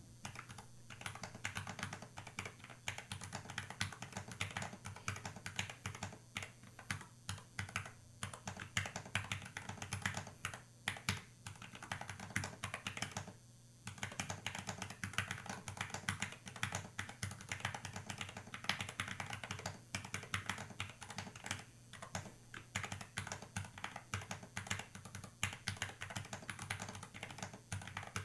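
Typing on a Planck ortholinear mechanical keyboard with lubed Gateron Milky Yellow linear switches: a fast, continuous run of keystrokes, with a short pause about halfway.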